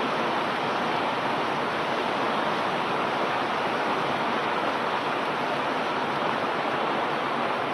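Fast-flowing floodwater rushing through a flooded street: a steady, even rush of water.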